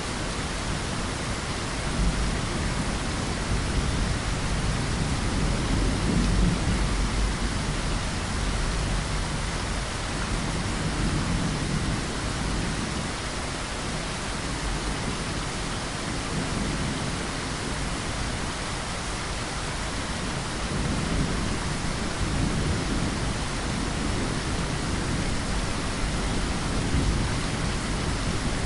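Steady heavy rain with low rolls of thunder that swell and fade, strongest a few seconds in.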